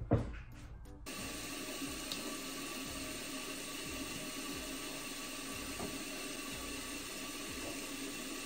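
Bathroom tap running into a sink: a short knock right at the start, then the water comes on about a second in and runs steadily as the face is washed.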